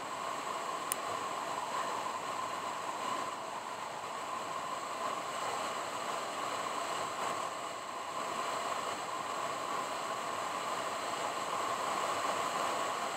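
Steady road and wind noise of a car on the move, an even rush with no engine note standing out, and a single sharp click about a second in.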